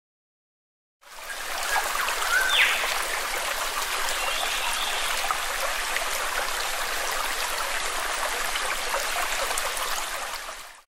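Steady running water like a babbling stream, fading in after about a second of silence and fading out near the end, with a short rising whistle about two and a half seconds in.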